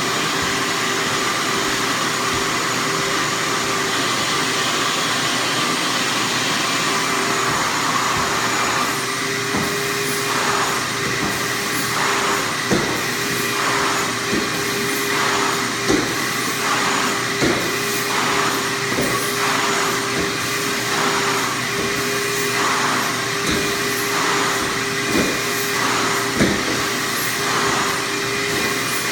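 Vortex Vacuums Super Bulldog floor vacuum running steadily during final vacuuming of a sanded hardwood floor. About a third of the way in, its sound starts swelling and fading every second and a half or so as the floor tool is worked back and forth, with a few sharp knocks.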